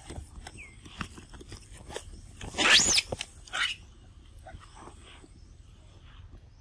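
A long-tailed macaque gives one loud, shrill squeal a little under three seconds in, sweeping up and back down in pitch, followed by a shorter, lower call. Faint crunching and clicks of monkeys chewing fruit and corn run around it.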